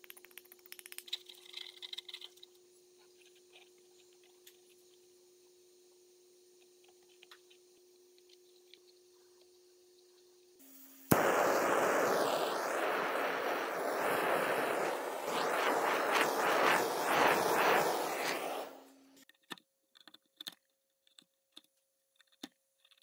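A few light scrapes and clicks of epoxy and charcoal powder being stirred with a screw, over a faint steady hum. About eleven seconds in, a handheld gas torch lights with a sharp click and hisses loudly for about eight seconds over the poured epoxy, then stops. Scattered small ticks and scrapes of a utility knife follow.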